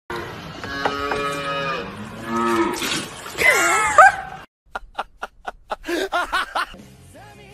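A calf at a bucket mooing in drawn-out calls, the loudest near four seconds in, with its pitch sliding down. It breaks off suddenly, followed by a quick series of clicks and a short laugh.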